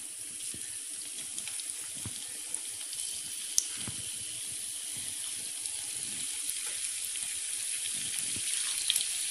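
Batter-coated okra pieces deep-frying in hot oil: a steady sizzling hiss with scattered small pops, one sharper pop about three and a half seconds in.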